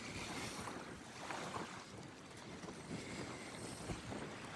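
Faint, steady wind noise on the microphone with light water sounds.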